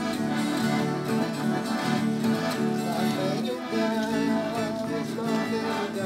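Acoustic guitar playing a lively, country-style instrumental introduction.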